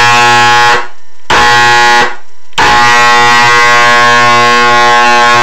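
Old Black & Decker bench grinder's 120-volt AC motor giving a loud, steady electric buzz as it is switched on and off. The buzz cuts out about a second in, comes back briefly, cuts out again about two seconds in, then returns and holds. The motor hums without getting going, the sign of a grinder that won't start on its own power.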